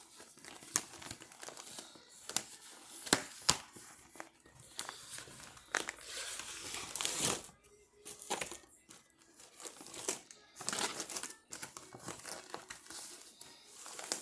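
Costume packaging crinkling and rustling as it is handled, with many sharp crackles and louder stretches of rustling about halfway through and again near the end.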